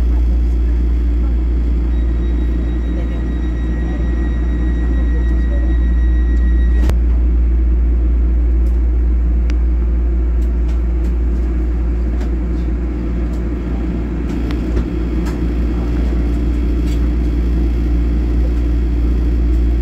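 Cabin noise inside a Taiwan Railways EMU3000 electric train: a loud, steady low rumble as the train moves slowly along the station platform. A thin high tone holds for about five seconds and stops with a sharp click about seven seconds in, and light ticks are scattered after it.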